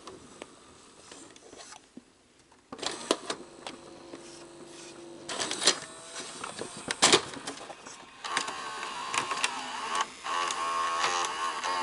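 Sony SLV-R5UC S-VHS VCR's tape-loading mechanism running: the loading motor whirs in spurts, louder in the last few seconds, among clicks and clacks of the gears and cam. The mechanism is not loading properly, which the owner puts down to the mode switch.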